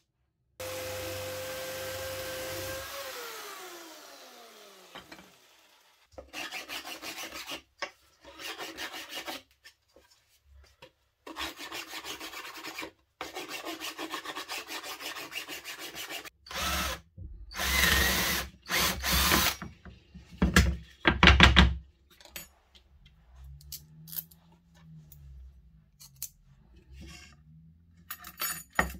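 Electric jigsaw running steadily, then winding down with a falling pitch as it is switched off. It is followed by several bursts of power-tool cutting in wooden board, each a few seconds long, the loudest a little past the middle. Near the end there are light taps and handling sounds.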